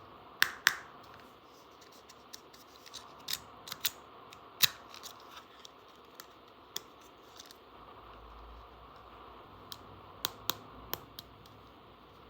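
Scattered sharp clicks and taps of small hard plastic toy parts being handled, loudest in a pair about half a second in, once near the middle, and in a short cluster near the end.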